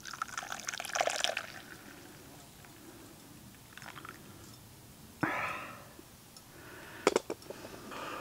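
Coffee poured from a small metal pot into a cup: a splashy pour in the first second or so, then fainter trickles. A few sharp knocks near the end.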